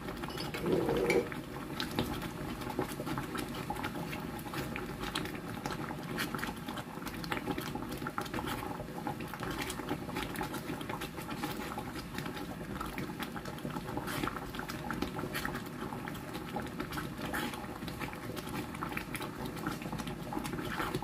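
Thick creamy mushroom soup bubbling at a simmer in a frying pan, a steady run of small pops and spits.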